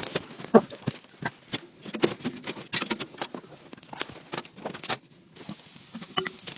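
A run of irregular light knocks and clicks, with one sharper knock about half a second in.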